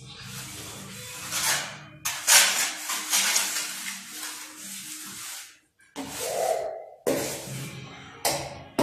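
Hand trowel scraping and smoothing wet cement mortar on a floor bed, in repeated rasping strokes, with faint music in the background.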